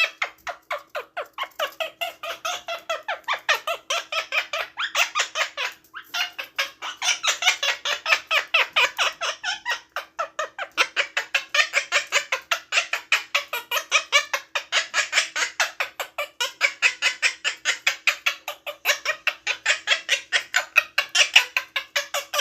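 Quaker parrot (monk parakeet) giving a long, rapid string of short, harsh chattering calls, about four to five a second, with brief pauses about six and ten seconds in.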